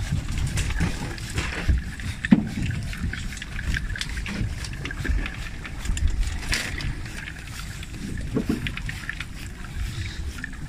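Wind rumbling on the microphone aboard a small boat at sea, with scattered clicks and knocks from handling. The loudest is a sharp knock about two seconds in.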